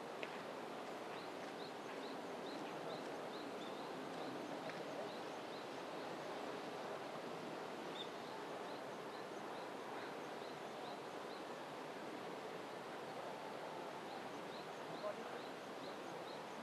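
Steady outdoor background hiss, with a faint, short high chirp repeating about two to three times a second; the chirping stops for a second or two about twelve seconds in, then starts again.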